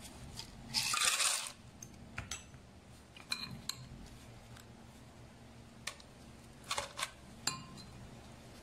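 Spoon and ingredients clinking and knocking against a glass blender jug, with a short scraping rustle about a second in and a few sharp, briefly ringing clinks through the rest.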